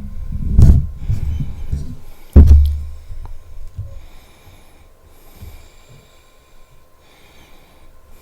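Close-miked eating of apple with peanut butter: two crisp crunching bites about two seconds apart, with heavy low mouth and chewing noise, then quieter chewing and mouth sounds.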